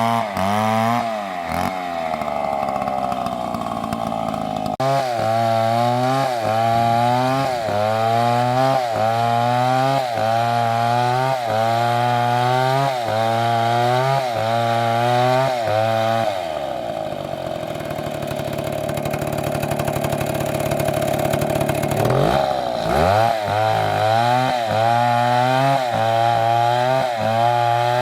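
Stihl two-stroke chainsaw running hard and cutting wood, its pitch rising and falling in a regular rhythm a little more than once a second as the cut loads it. Partway through it runs at a steadier pitch for several seconds, then the revs drop and climb back before the rhythmic cutting resumes.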